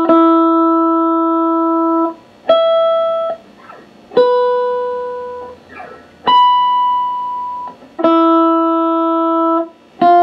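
High E (first) string of an electric guitar plucked six times, each note left ringing for a second or two against a tuner: the open string, then higher fretted notes, then the open string again, with faint finger squeaks on the string between some notes. It is an intonation check of the newly set saddles on a Floyd Rose FRX bridge.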